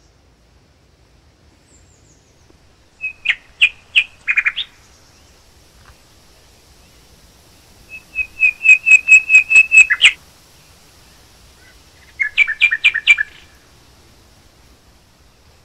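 A songbird singing three loud runs of rapid, repeated whistled notes, each run lasting one to two seconds, with a few seconds' pause between them.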